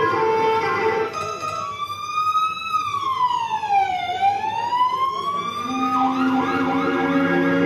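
Dance music over loudspeakers breaks into a siren-like sound effect: one tone slides up, then down to a low point about four seconds in, and back up again. About six seconds in, a quick run of short rising chirps, about five a second, leads back into the music.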